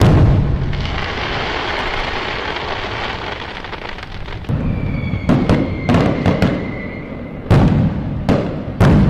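Fireworks going off: a loud burst opens into a long crackling hiss that slowly fades. About halfway through comes a run of sharp bangs and cracks with a thin whistle over them, then another big bang and more cracks near the end.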